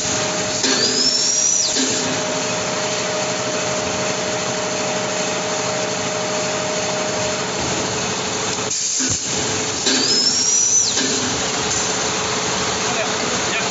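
Air-powered tire doubling machine running with a steady mechanical noise and hum. Twice, about a second in and again near ten seconds, a louder whine rises, holds for about a second and cuts off sharply as the machine works through a cycle.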